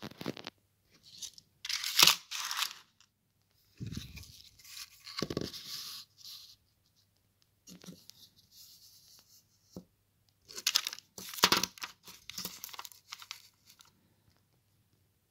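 Plastic shrink-wrap on angle-grinder flap discs crinkling in several bursts as the discs are handled and turned over, with a few soft knocks as they are set down on the table.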